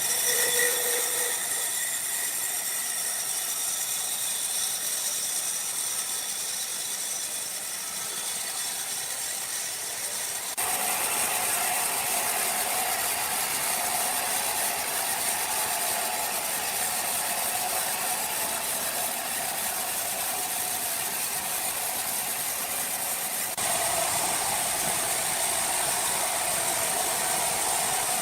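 Sawmill machinery running: a steady mechanical rattle and hiss with a faint whine. It steps louder suddenly about ten seconds in and again near the end.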